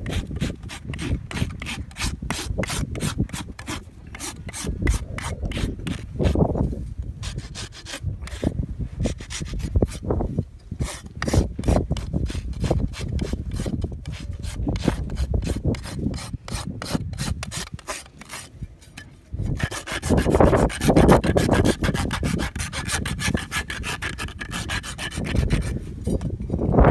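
A steel hoof rasp filing a horse's hoof during a trim, in rapid repeated scraping strokes across the hoof wall and sole. The strokes come louder and denser about two-thirds of the way through.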